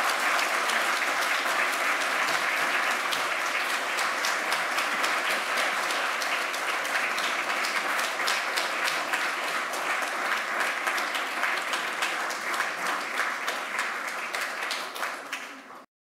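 Lecture-hall audience applauding steadily, a dense clatter of many hands clapping that slowly thins and then stops abruptly near the end.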